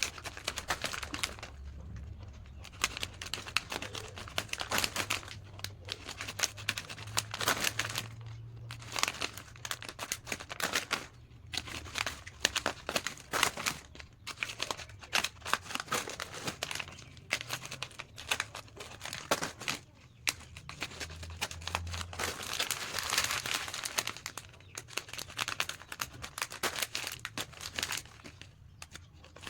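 Plastic snack packets crinkling and rustling as they are handled, with irregular crackles throughout.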